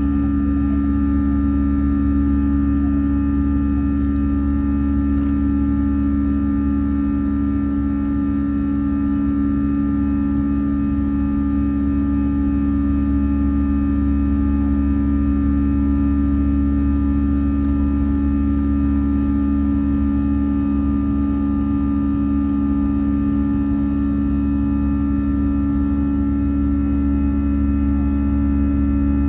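Steady cabin drone of an Airbus A321 jet airliner climbing after takeoff: a low rumble with a strong, even hum and fainter higher tones from the engines running at climb power, unchanging throughout.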